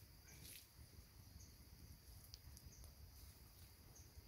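Near silence outdoors: a faint, steady high-pitched insect trill, with short faint chirps about once a second, over a low rumble.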